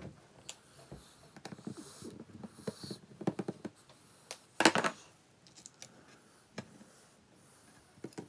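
Small clicks, taps and scrapes of plastic parts being handled as the multi-function display unit is taken apart. About four and a half seconds in there is one louder, brief rasping noise.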